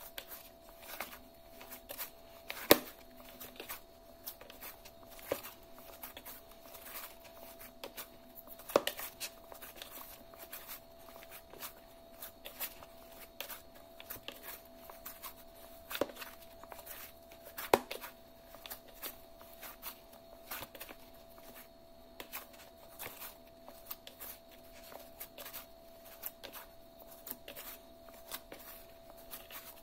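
Hands kneading soft roti dough in a metal mixing bowl: irregular soft squishes and pats, with a few sharper knocks of dough or hand against the bowl.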